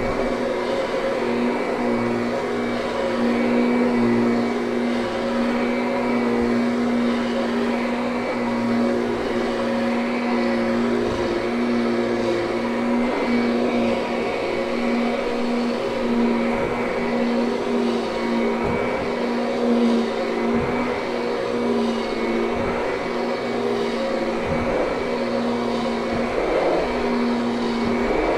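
Kirby upright vacuum cleaner running steadily over carpet: a constant motor hum at an even pitch, with a few soft low knocks as it is pushed.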